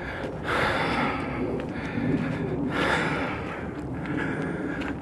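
A person breathing hard and loudly close to the microphone, several long breaths in a row, while walking uphill.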